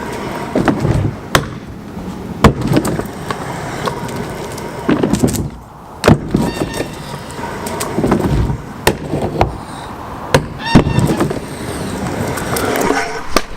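Kick scooter riding a quarter pipe: wheels rolling and grinding over concrete, broken by several sharp clacks as the wheels and deck hit the ramp.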